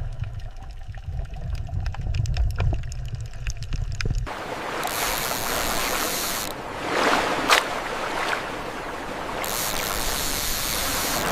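Low rumble with scattered clicks, then from about four seconds in an abrupt switch to a steady rush of sea water, with a louder splash surge near the middle.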